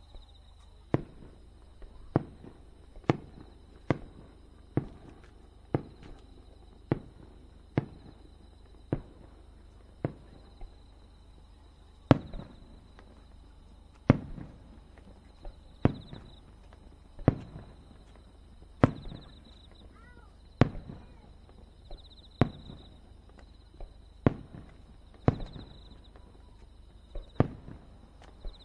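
Fireworks display: a long series of sharp single bangs, about once a second at first and then every second or two, each with a short echoing tail.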